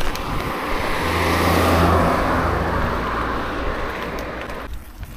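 A road vehicle passing by: a noisy rush with a low engine hum that swells for the first couple of seconds, then fades and cuts off suddenly near the end.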